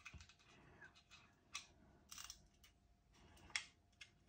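Faint metallic clicks and scrapes of a hex key turning a small screw into the metal case of a Chord Mojo DAC, a handful of short ticks with the loudest about three and a half seconds in.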